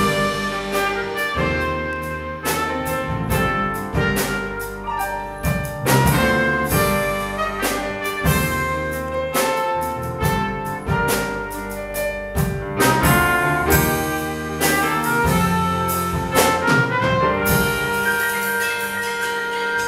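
Live small-group jazz: a trumpet plays over electric bass guitar and a drum kit with cymbals. Near the end the drum strikes thin out and held notes ring on.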